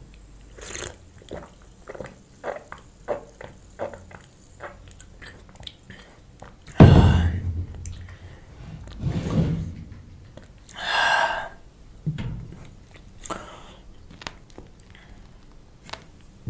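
Close-miked mukbang mouth sounds: a quick run of gulps and mouth clicks from drinking an iced drink, then chewing. A heavy thump about seven seconds in is the loudest sound.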